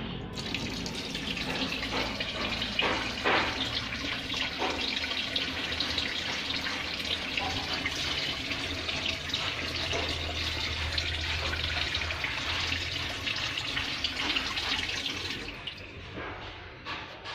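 Water running steadily from a tap or pipe, with a few brief knocks a few seconds in, easing off near the end.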